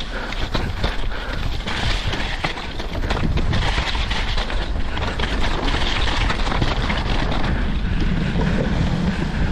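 Wind buffeting the microphone while a mountain bike descends fast over a rocky gravel trail, its tyres crunching and the bike rattling over stones. Near the end the tyres run onto wooden boardwalk slats and a low drumming rumble comes in.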